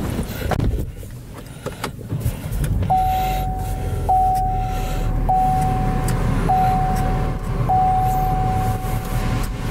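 Inside a car: a low rumble with a few clicks, then a car's warning chime, one steady tone that restarts about every 1.2 seconds, five times in a row.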